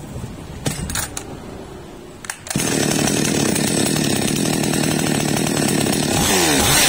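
A few clicks, then a Zomax two-stroke chainsaw engine starts suddenly about two and a half seconds in and runs steadily on its first test run after a carburettor repair. Near the end its pitch repeatedly rises and falls as the engine speed surges.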